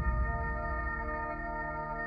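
Ringing tail of a short closing music sting: a held chord of many steady tones slowly fading away.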